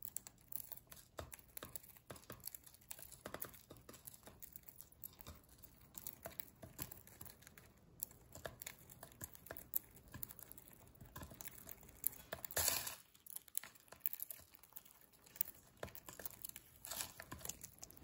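Budgerigars cracking and husking seeds in a plastic tub: a steady run of small, quick crackling clicks, with a somewhat louder flurry about twelve seconds in.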